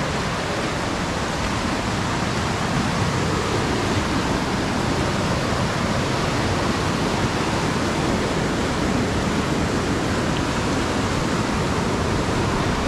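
Fast mountain river rushing over rocks in white-water rapids: a steady, even rush of water with no breaks.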